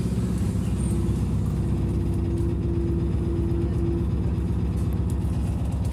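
SVARZ-6275 trolleybus heard from inside while moving: a steady low rumble of wheels and road. A steady hum joins in for a couple of seconds in the middle.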